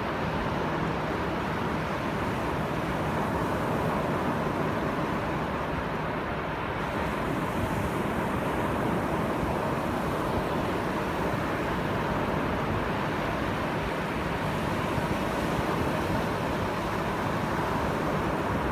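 Small ocean waves breaking just offshore and washing up over wet sand at the water's edge: a steady rushing surf noise.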